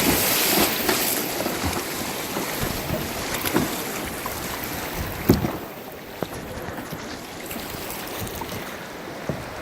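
Rushing whitewater around a kayak, a steady noisy wash with splashes and a few sharp knocks, the loudest a little past halfway; the rush eases and drops quieter after about five and a half seconds.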